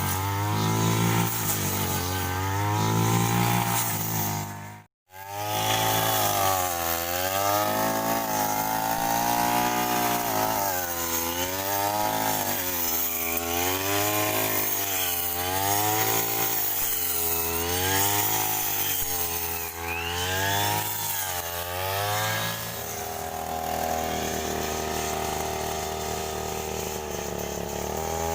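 Small petrol engine of a grass-cutting brush cutter running hard, its pitch dipping and recovering every second or two as it cuts. The sound drops out for an instant about five seconds in, and the engine runs at a steadier pitch near the end.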